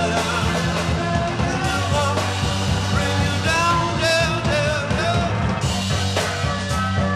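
Late-1960s rock band playing live: a steady bass line and drums, with a wavering lead melody line above.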